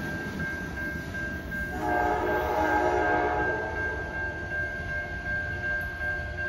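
Amtrak passenger train pulling away, its locomotive horn sounding one chord blast of about a second and a half from up ahead, about two seconds in, over the low rumble of the departing cars. A steady, thin, high ringing tone runs under it.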